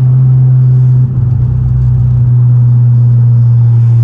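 2014 Ford Focus ST's turbocharged 2.0-litre four-cylinder running steadily under way, a loud low drone from the moving car, dipping briefly about a second in.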